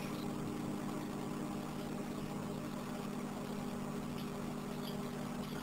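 Microwave oven running with a steady hum while it heats a slice of bread.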